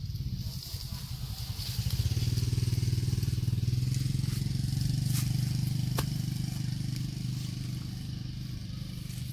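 A motor vehicle engine running, growing louder about two seconds in and slowly fading toward the end, with a couple of sharp clicks midway.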